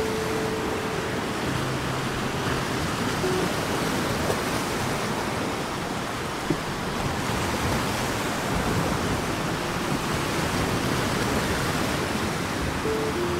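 Steady rush of ocean surf, with a few soft held music notes near the start and again near the end.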